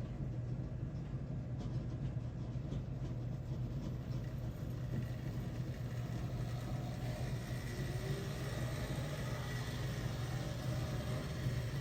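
HO scale Bowser 4-6-6-4 Challenger model steam locomotive running with a train of cars: a steady motor and gear hum with the rolling noise of wheels on track.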